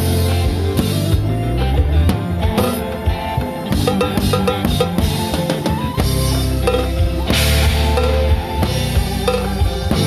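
Live band music played loud and close: drum kit with bass drum and snare driving a steady beat under bass and electric guitar, with a cymbal wash about three-quarters of the way through.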